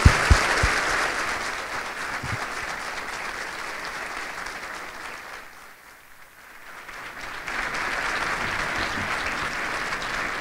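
A large audience applauding: dense, steady clapping that fades to a lull about six seconds in, then swells again toward the end.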